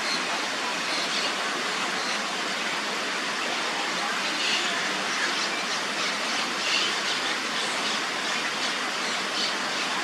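Steady rush of falling water, like a waterfall, with faint short high bird chirps scattered through it.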